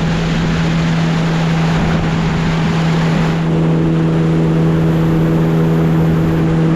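Outboard motor on an aluminium tinny running steadily at speed, with a continuous rush of wind and water. The engine's drone gains extra overtones about halfway through.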